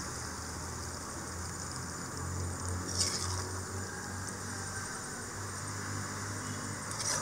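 Steel ladle clinking and scraping in a metal cooking pan while curry is spooned into a serving bowl: two short clinks, the louder about three seconds in, the other near the end, over a steady low hum.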